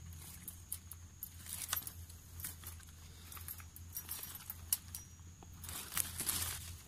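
Small wire-mesh cage trap with a rat caught inside, its metal mesh giving off light, irregular clicks and rattles, busiest about six seconds in.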